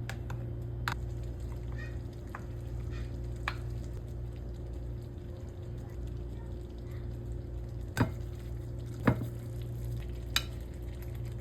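Food frying in a pan over a steady low hum, with a few sharp knocks of a utensil against the pan, the loudest about eight and nine seconds in.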